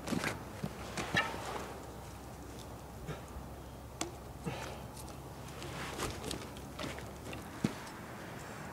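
Footsteps and handling noises on wood-chip ground: irregular scuffs, rustles and small knocks as logs are handled, with one sharper knock near the end.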